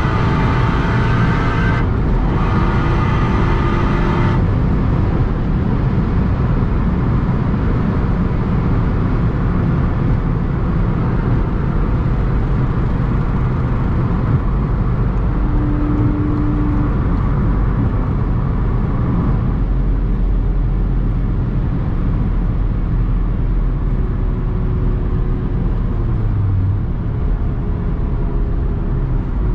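Heard from inside the cabin of a big-turbo SEAT Ibiza Cupra at over 200 km/h. The engine pulls under load for the first few seconds, with a brief break about two seconds in. Then it drops away, and a steady rush of wind and tyre noise takes over as the car slows down.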